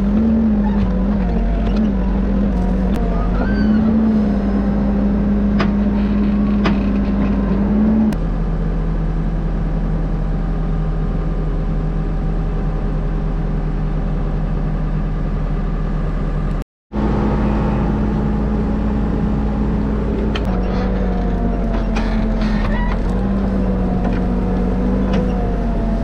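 Backhoe loader's diesel engine running steadily, its pitch stepping down and back up several times as the digging arm works, with a few sharp knocks. The sound cuts out for a moment about two-thirds of the way through.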